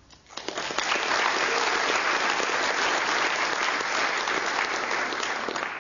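Conference audience applauding, a dense steady clapping that swells in just after the start and fades near the end.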